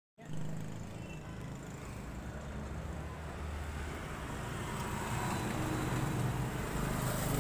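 Steady low rumble of a motor vehicle running nearby, growing a little louder toward the end.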